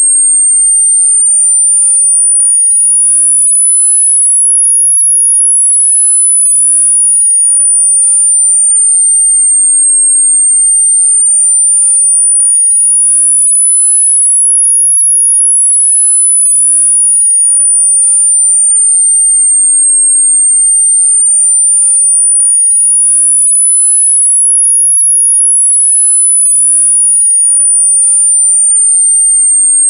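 A single very high electronic pure tone sweeping smoothly and slowly up and down between 8.5 and 10 kHz, one rise and fall about every ten seconds, at a steady loudness: a variable-sweep tinnitus masking sound.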